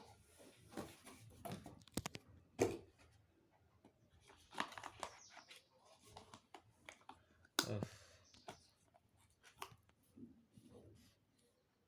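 Handling of a smartphone box and its packaging: scattered clicks and knocks with brief rustling and tearing of paper and plastic, the sharpest knocks a few seconds in and again past the middle.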